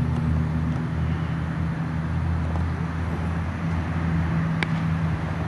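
Steady low hum of a running engine, with one sharp crack about four and a half seconds in.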